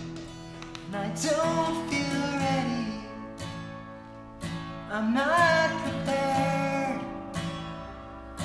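A band song: strummed acoustic guitar under two drawn-out vocal phrases whose pitch bends and glides, the first about a second in and the second about halfway through.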